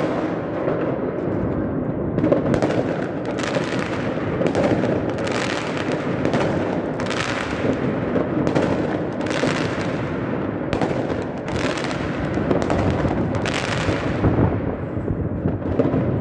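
Fireworks going off continuously: a dense rumble of many bangs, with sharper cracks standing out about once a second.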